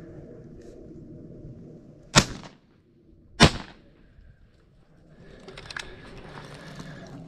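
Two shots from a 12-gauge over/under shotgun, both barrels fired one after the other about a second and a quarter apart, each a sharp bang with a short fading tail. A few seconds later come soft rustling and small clicks.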